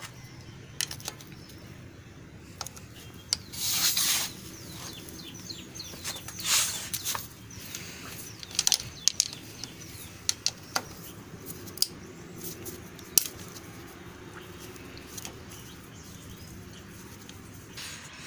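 A T-handle socket wrench loosening the bolts of a motorcycle engine's crankcase side cover, heard as scattered sharp metallic clicks and clinks as the tool seats and the bolts come out and are set down. There are short scraping bursts about 4 and 6.5 seconds in.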